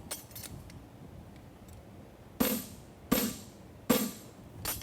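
Three hammer blows on a steel horseshoe at the anvil, about three quarters of a second apart, each with a short metallic ring.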